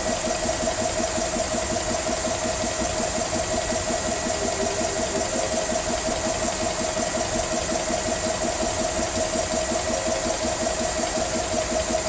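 GX CS3 portable PCP high-pressure air compressor running steadily, a constant hum with fast even pulsing from the pump strokes, while it fills an air gun slowly at around 1,500–1,700 psi.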